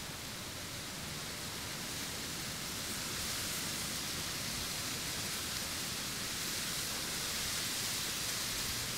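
Steady, even outdoor hiss with no distinct events, growing a little louder about two to three seconds in.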